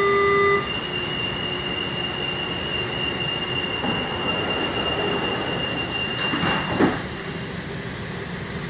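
Driverless monorail car at a station: a loud electronic beep ends about half a second in as the doors close, then the car runs with a steady high whine over a rumble. One short loud knock comes near the end.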